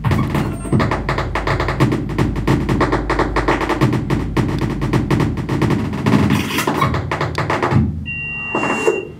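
Electronic music of dense, rapid clicks and percussive glitches over low pulses. About a second before the end the clicks stop and give way to a steady high tone with a fainter lower one.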